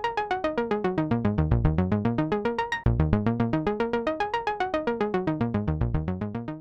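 Background music: a fast electronic synthesizer arpeggio, even notes at about nine a second sweeping up and down in pitch, with a short break about three seconds in.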